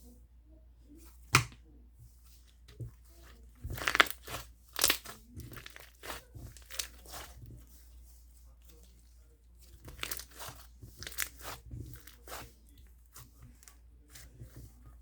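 Slime being worked by hand, giving sharp crackling pops and snaps. There is a loud single snap about a second in, a dense run of pops around four to five seconds in, and another run around ten to twelve seconds in.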